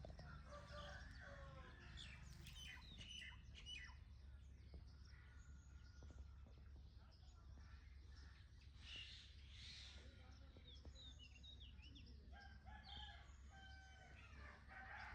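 Faint bird calls, short chirps and whistles repeated throughout, over a steady low hum.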